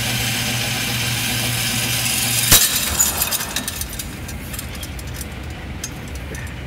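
Shooting-range target carrier's motor humming steadily as it runs the paper target back along the overhead track, then stopping with a single sharp knock about two and a half seconds in. After that come scattered crackles and clicks of the paper target being handled.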